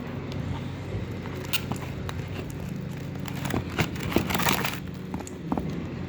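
Slime being stirred with a stick in a plastic bucket: scattered scrapes, clicks and sticky crackling, loudest about four seconds in, over a steady low hum.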